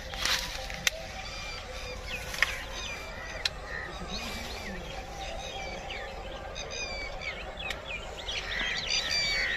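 Birds chirping: many short calls overlap throughout, over a low steady rumble, with a few sharp clicks.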